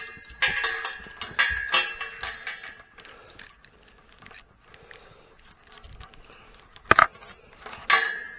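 Metal stall-gate hardware clanking, latch and chain striking with a short ringing tone: a quick run of clanks in the first three seconds, a sharp knock about seven seconds in and one more ringing clank near the end.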